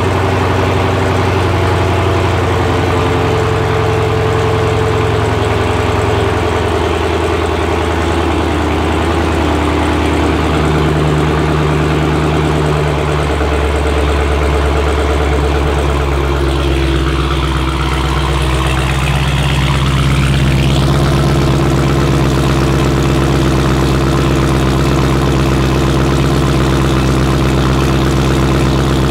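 Straight-piped exhaust of a Dodge Challenger SRT Hellcat's supercharged 6.2-litre HEMI V8 idling steadily while the engine warms up from cold.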